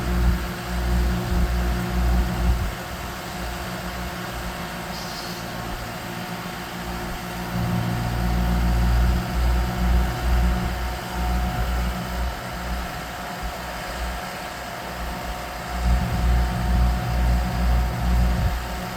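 An engine idling steadily, with a low rumble that swells and eases.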